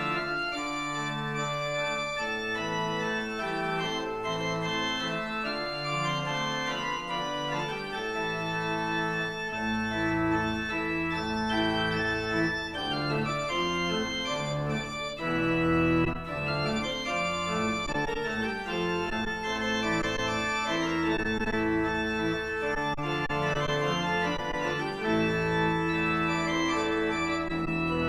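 Organ music: sustained chords changing every second or so, with a deep bass line entering about ten seconds in.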